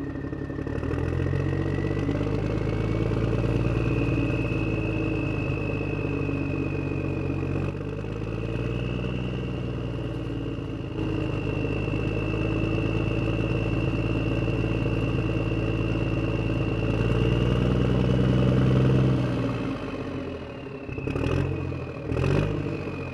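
Electric motors and gearboxes of an RC Huina toy excavator whining and whirring as it works, the high whine drifting slowly up and down in pitch. Near the end the whine drops away and there are two sharp knocks about a second apart.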